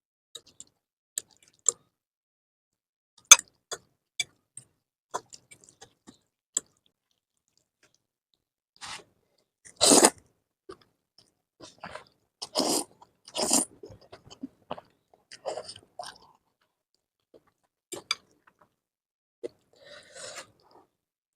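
Close-miked eating of spicy ramen noodles: scattered small wet mouth and utensil clicks, then from about nine seconds in louder short bursts of slurping and chewing, spaced a second or more apart.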